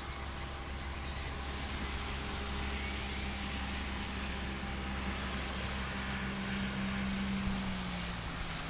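Motor vehicle noise: a steady low engine hum under a hiss of road noise that builds, with an engine tone that grows and then drops away near the end as the vehicle passes.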